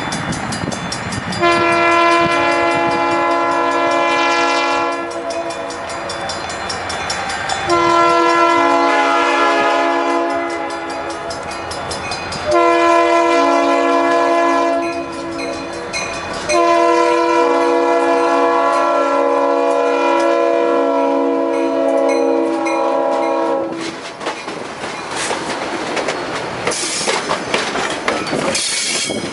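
Diesel locomotive's multi-note air horn sounding four long blasts, the last held about seven seconds, as the train approaches. After that the passenger cars roll past close by, their wheels clicking over the rail joints.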